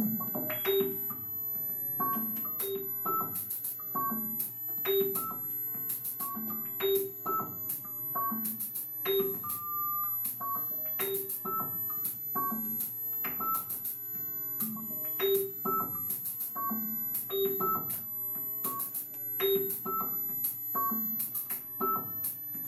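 Electronic music: a steady, repeating pattern of short synthesized keyboard notes with crisp high ticks over them.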